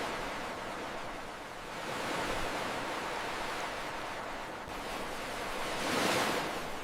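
Ocean waves surging, a steady rush of water that swells about two seconds in and again, loudest, near the end.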